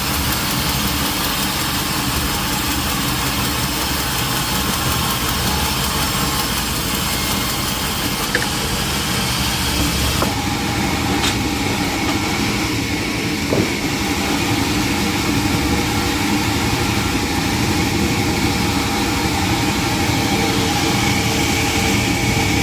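Sawmill machinery running steadily, with a few short knocks. The high hiss drops away about ten seconds in while the lower running noise carries on.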